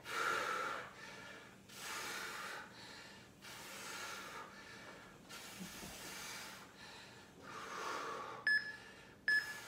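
A man breathing hard in and out in time with resistance-band hammer curls, a breath about every one and a half to two seconds. Near the end, two short electronic beeps from the workout interval timer count down the end of the set.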